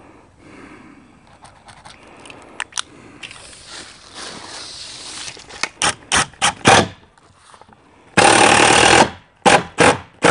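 Steel tape measure in use: the blade is drawn out with scraping and a run of sharp clicks, then it retracts into its case in a loud rattling rush lasting about a second, about eight seconds in, followed by a few more clicks.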